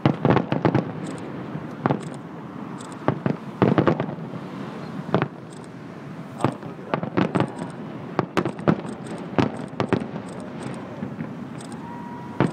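Aerial fireworks shells bursting in an irregular series of sharp bangs, several coming in quick clusters, over a steady background rumble.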